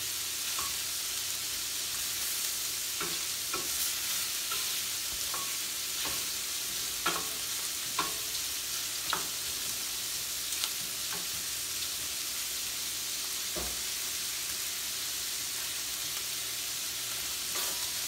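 Shrimp sizzling steadily as they fry in a stainless steel skillet, stirred with a spoon that scrapes and knocks sharply against the pan several times.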